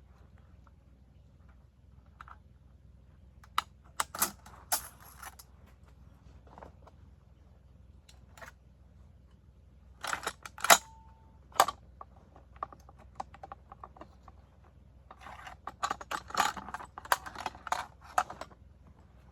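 Metal clicks and rattling of a PKMS machine gun's parts being handled during disassembly. The clatter comes in three spells, with sharp single clicks about ten to twelve seconds in.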